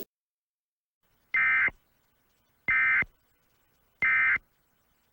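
Emergency Alert System end-of-message code: three short, identical buzzy digital data bursts about a second and a quarter apart. This is the SAME tone signal that closes an alert broadcast.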